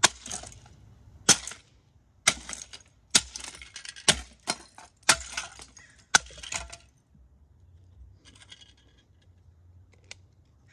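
Rubber mallet blows smashing the plastic CD mechanism of a Lenoxx Sound CDR-190 CD player on concrete: about ten sharp cracks in quick succession, each followed by broken plastic pieces clattering across the floor. The blows stop after about seven seconds.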